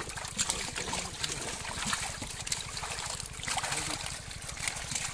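Live fish thrashing and splashing in shallow water inside a hauled-in fishing net, with water splashing and dripping as hands scoop them into a plastic basket.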